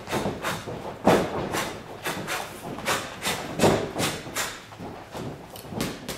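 Boxer shadowboxing in a ring. There are irregular thumps and scuffs from footwork on the canvas and moving gloves, about two or three a second.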